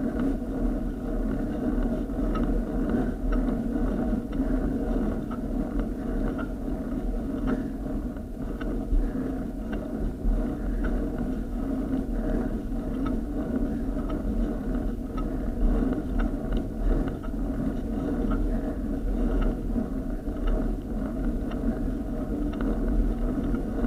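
A bicycle climbing a steep tarmac lane, heard through the bike-mounted camera as a steady rumble of road and mount vibration with scattered small knocks from bumps in the surface.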